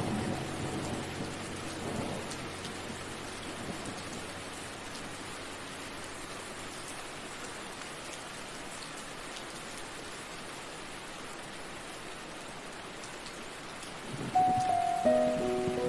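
Steady calm rain, an even hiss. The last held notes of soft music fade away in the first second or two, and music with held notes comes back in about two seconds before the end.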